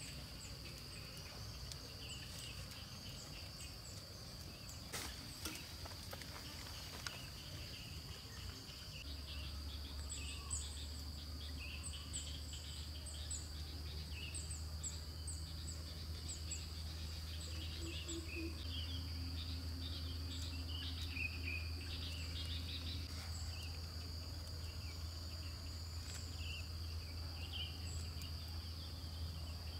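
Forest ambience: a steady high-pitched insect drone with many short bird chirps scattered over it. A low steady hum comes in about nine seconds in.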